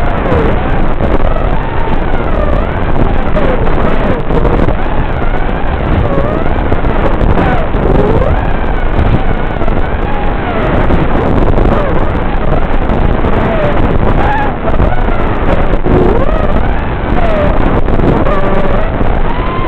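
Brushless motors (RS2205 2300KV) of an FPV racing quadcopter, heard through its onboard microphone: a whine that glides up and down with the throttle, over a steady rushing noise.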